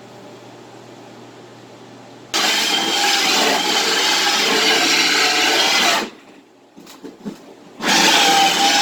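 Electric paint sprayer running with a loud rushing hiss and a wavering motor hum, in two bursts: one of about four seconds, then a short pause, then another starting near the end.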